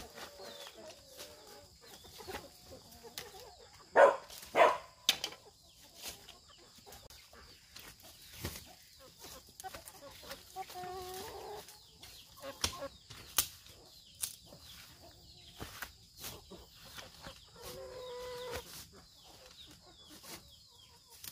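Chickens clucking, with two short calls about ten and eighteen seconds in, among scattered knocks and clatters from handwork, the loudest a few sharp knocks about four to five seconds in.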